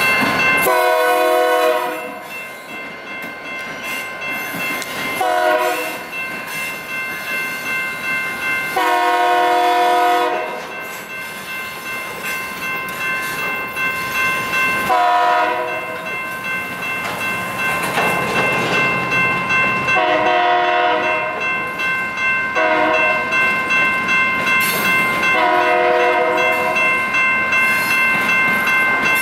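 Freight train passing through a grade crossing. The crossing signal bells ring steadily, wheels clatter over the rails as the cars roll by, and the lead locomotive's multi-note air horn sounds about seven separate blasts, mostly long, a few short.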